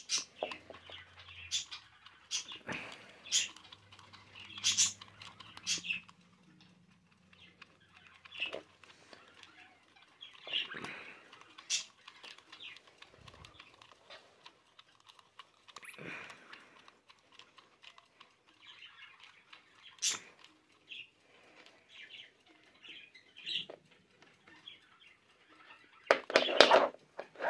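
Clear plastic quartz travel alarm clock being handled while its hands are wound forward by the setting knob: scattered irregular plastic clicks and squeaks, with a louder burst of handling noise near the end.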